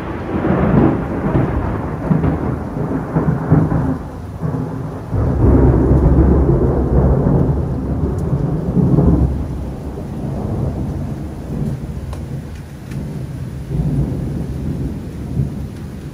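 Thunder rolling over steady heavy rain: a long low rumble that dies down, swells again about five seconds in, then fades away near the end.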